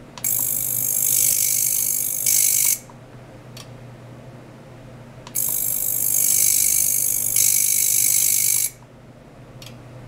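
Ultrasonic probe oscillating in a water tank around a glass jar, switched on twice: each time a loud, high-pitched hissing buzz lasting about three seconds that steps louder shortly before it cuts off sharply. A low steady hum runs underneath.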